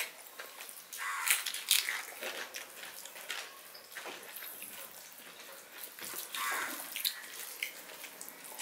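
Two people eating fried rice by hand: wet chewing and lip smacks in irregular short clicks, with fingers mixing rice on the plates.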